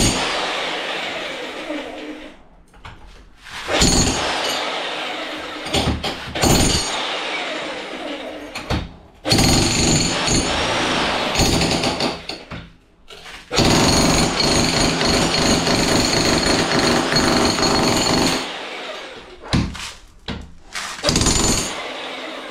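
Jackhammer with a pointed chisel bit chipping into a brick door jamb, run in several long bursts with short pauses between.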